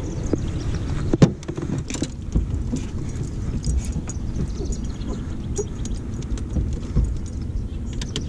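Handling noise as the bass boat's livewell lid is opened and the caught bass is put in: a sharp knock about a second in, then scattered clicks and rattles over a steady low rumble.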